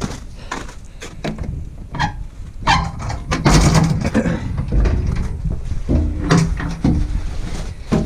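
Irregular clunks and knocks of someone climbing the steps of a Case IH 1070 tractor and opening its cab door, over a low rumble of handling noise on the microphone. The engine is not running.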